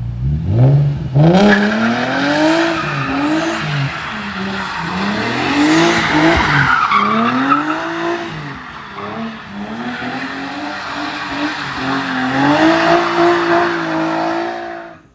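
Car engine revving hard, its pitch swinging up and down about once a second, over a steady tyre squeal, as in drifting. It cuts off suddenly at the end.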